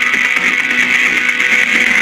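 Guitar-driven intro theme music of a TV news special, with strummed electric guitar.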